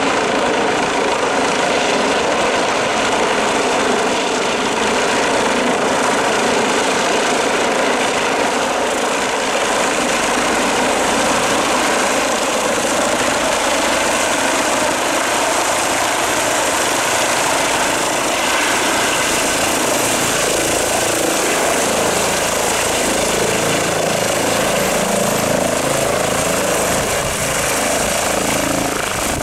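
ADAC Eurocopter EC135 rescue helicopter descending and setting down to land: steady, loud rotor and turbine noise, with the pulsing beat of the blades growing plainer over the second half of the descent.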